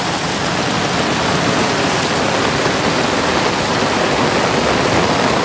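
Torrential rain and muddy floodwater rushing across a mountain road, a loud, steady rush of water.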